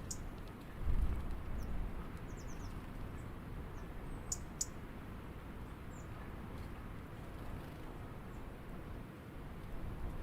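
Small birds chirping at a backyard feeder: short high chirps scattered throughout, with a quick run of chirps a couple of seconds in and two sharper ones near the middle, over a steady low rumble.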